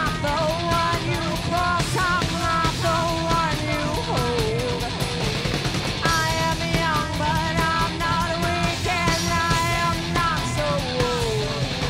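Heavy metal band playing live, loud and continuous, with a high melodic line gliding over the band.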